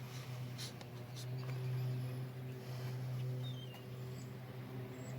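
A few light clicks and scrapes in the first few seconds as the sections of a metal truck bed extender are pulled out, over a steady low hum. A bird chirps once near the middle.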